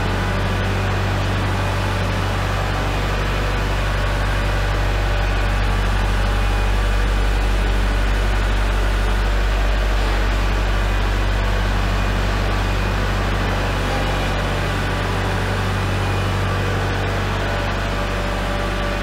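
Kubota compact tractor's diesel engine running steadily as it moves a heavy pallet on its forks, a loud low hum that swells slightly in the middle.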